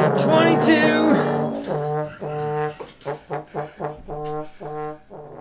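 A large ensemble of trombones playing: a loud held chord in the first second, then a string of about eight short repeated notes on one pitch that grow fainter and stop near the end.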